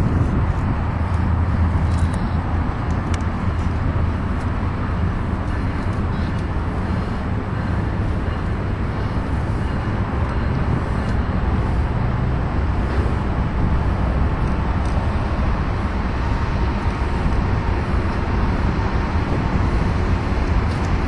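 Steady roar of road traffic from the freeway overpass, with a low rumble that swells in the first few seconds and again about halfway through.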